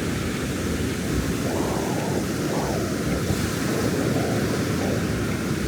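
Ocean surf breaking and washing up the beach, a steady rushing noise with gentle swells in level, and wind buffeting the microphone.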